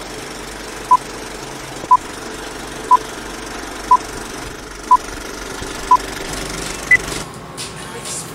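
Vintage film-leader countdown sound effect: a projector's steady rattle under a short beep once a second, six times, then a single higher beep, after which the rattle cuts off.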